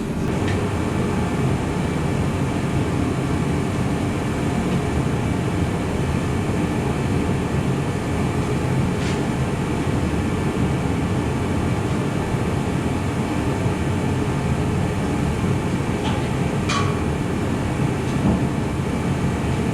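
Steady mechanical drone, like a running machine or fan, with a brief click or hiss about nine seconds in and again near the end.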